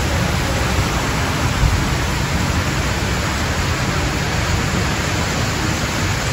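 Steady rush of water running down the lift ramp of the Splash Mountain log flume as the boat is carried up, with a low rumble underneath.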